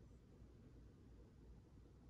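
Near silence: faint, steady low room tone.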